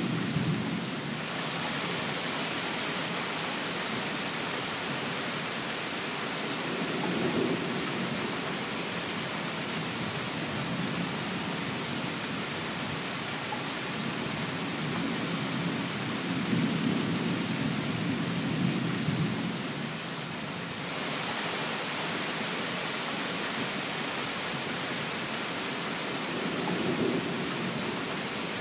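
Steady, heavy rain hiss with a low rumble swelling up four times, near the start, after about seven seconds, for several seconds in the middle and again near the end. The hiss turns brighter about a second in and duller again about twenty seconds in.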